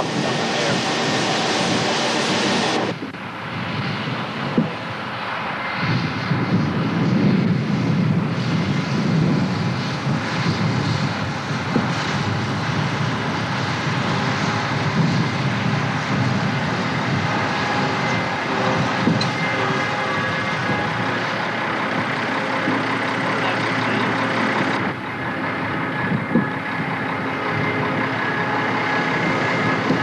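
A John Deere 8820 combine's diesel engine and threshing machinery running steadily close by during the harvest. A few seconds in, a broad rushing noise gives way to the engine sound, and there is a further cut in the sound near the end.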